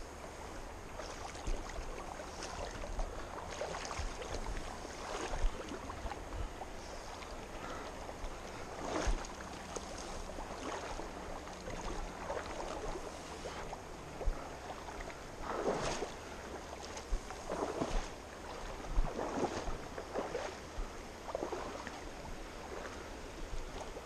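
Shallow river water splashing and sloshing close by in irregular surges every second or few, over the steady rush of the flowing river, with occasional low bumps.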